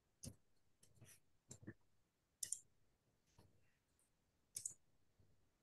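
Faint, irregular small clicks and taps, about eight in five seconds, some in quick pairs, against near silence in a small room.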